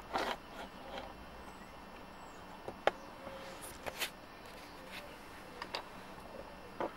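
A handful of short, light clicks and knocks scattered over a faint steady background hiss, from the camcorder being handled as it is tilted up and refocused.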